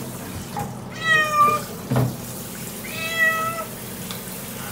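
Domestic cat meowing twice in protest at being handled for a bath, each meow about half a second long. The first meow falls slightly in pitch at its end. A single soft thump falls between the two meows.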